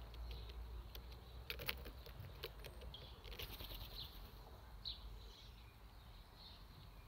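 Quiet garden ambience: a low steady rumble, a short run of sharp clicks about one and a half seconds in, and a few faint high bird chirps later on.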